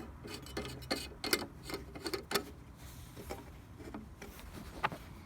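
Handling noise: irregular light clicks and taps, several in the first two and a half seconds and only a few after that.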